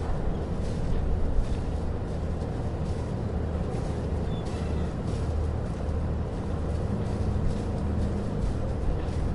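A boat engine running steadily at low revs in a marina, a constant low hum, with faint light knocks and clicks scattered over it.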